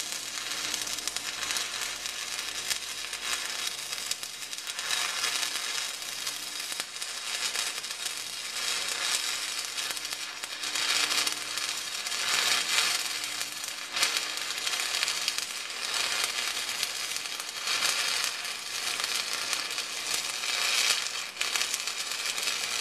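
Stick-welding arc crackling and sizzling steadily as a bead is run on the steel backhoe bucket.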